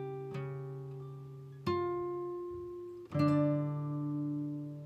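Background music: slow acoustic guitar chords, each strummed and left to ring out. A new chord comes about every one and a half seconds.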